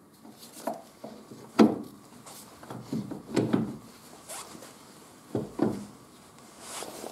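Gloved hands handling and fitting Audi A4 B5 front-suspension parts: a few irregular knocks and clunks of metal parts, the loudest about a second and a half in, with rubbing and rustling between.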